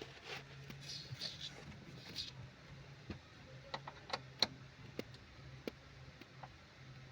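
Light clicks and taps of hand work on a Mercedes-Benz W212's panoramic roof mechanism as its bolts are lubricated to stop a creak, with a few short hisses in the first couple of seconds over a steady low hum.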